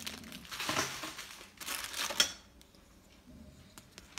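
Plastic bubble wrap crinkling as bubble-wrapped organiser parts are handled, in two spells that stop a little over two seconds in. A few faint ticks follow.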